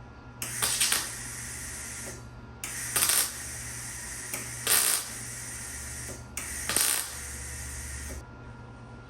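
Welding arc crackling and sizzling in three runs of a few seconds each, split by brief stops and flaring louder at the start of each run: tack welds joining an 18-gauge steel patch into a hole in a truck tailgate.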